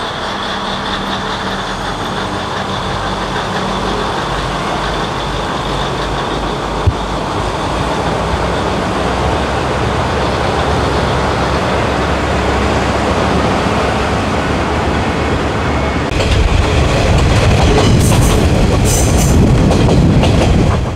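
Kominato Railway KiHa 200 diesel railcar pulling away and running along the line, its engine and wheel noise steadily growing louder, with one sharp knock about seven seconds in. About sixteen seconds in it gets louder still, with wheels clattering over the rails and brief high scraping.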